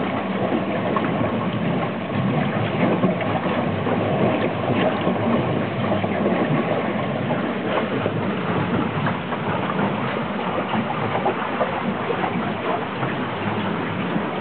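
Water rushing along the hull of an Aviateur 5.70 sailboat under way, heard inside the cabin: a steady churning wash with many small clicks and knocks.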